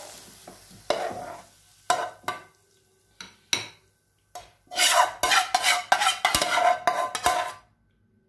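Spatula scraping and knocking against a frying pan as the cooked curry is scraped out of it: a few separate knocks, then a run of rapid scraping strokes from about five seconds in that stops shortly before the end.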